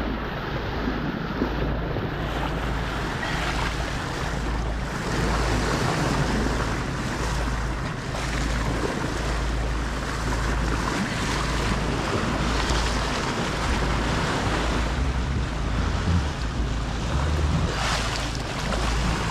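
Bow wave rushing and splashing along a sailboat's bow under way, with wind buffeting the microphone in a low, uneven rumble.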